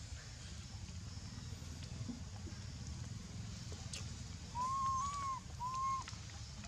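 Young macaque whimpering: two high, arching cries about a second apart, past the middle, over a low steady rumble.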